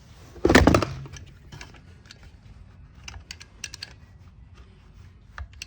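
Small clicks and taps of hand tools and small chainsaw parts being handled during disassembly, scattered and irregular. There is one loud short burst about half a second in.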